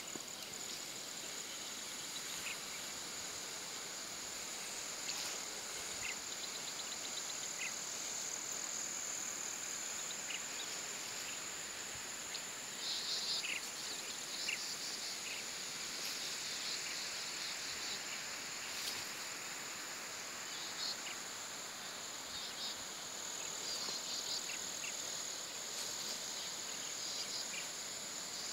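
Steady high-pitched drone of insects, with scattered short chirps over it.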